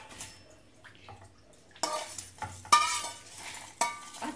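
A steel spatula scraping and clinking against a stainless steel kadai and a steel mixer jar as dry-roasted whole spices are scraped in. There are three sharp metallic clinks about a second apart that ring briefly, with quieter scraping between them.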